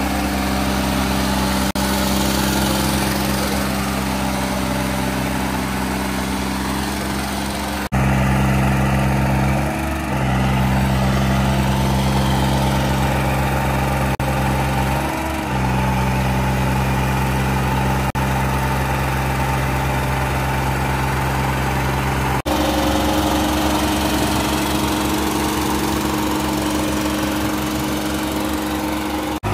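Diesel tractor engines running hard under heavy load in a tractor tug-of-war, a steady loud drone. Twice, about ten and fifteen seconds in, the engine note dips briefly, and the sound changes abruptly at a few points.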